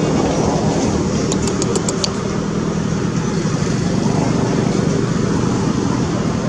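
A motor running steadily with an even hum, and a quick run of about six sharp clicks between one and two seconds in.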